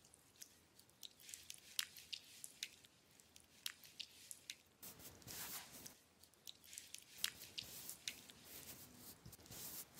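Hands massaging aloe gel into facial skin: soft, sticky, wet clicks and squishes. About halfway through they give way to longer smearing rubs.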